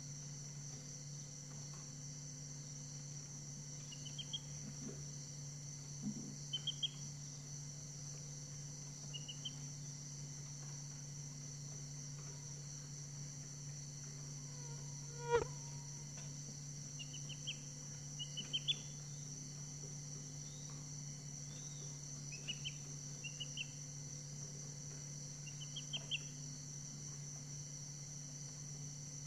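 Short clusters of two to four quick high bird chirps every few seconds, over a steady high insect chorus and a low steady hum. One sharp click comes about halfway through.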